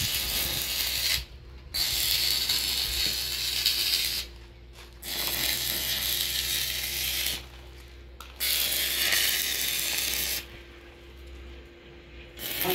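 Stick (arc) welding at the foot of a steel post: the electrode's arc crackles and sizzles in four runs of about two seconds each, with short breaks between them. A steady low hum runs underneath, and there is a short sharp knock near the end.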